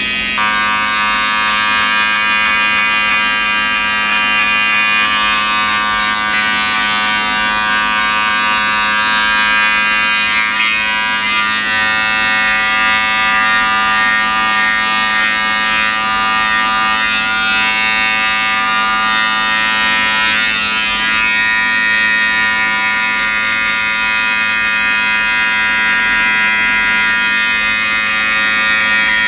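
Electric hair clippers running with a steady buzzing hum while cutting hair. The tone shifts about ten seconds in.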